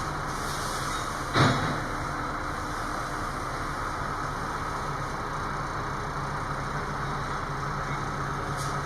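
A crane's engine running steadily as a low, even drone. A single sharp knock comes about a second and a half in.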